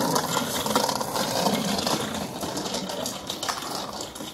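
Small children's bicycle with training wheels rolling over rough, cracked concrete, its wheels and frame rattling with a fast run of fine clicks that fades a little towards the end.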